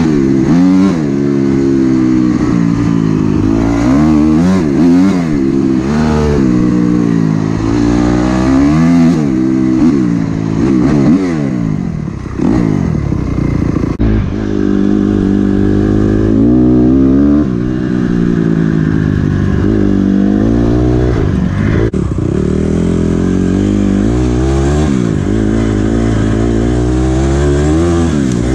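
Red Honda dirt bike's single-cylinder four-stroke engine, heard at riding speed, revving up and dropping back again and again as the rider accelerates and shifts gears.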